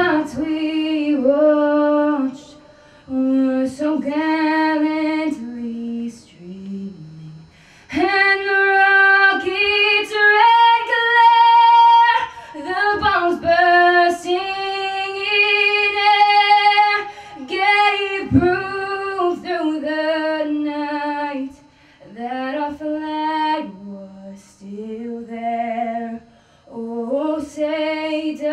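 A teenage girl singing solo into a handheld microphone, without accompaniment: sung phrases with long held notes, broken by short pauses.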